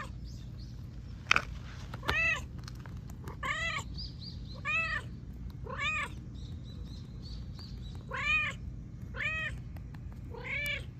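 Orange-and-white cat meowing repeatedly: seven short meows, each rising then falling in pitch, about a second apart. A sharp click sounds once about a second in.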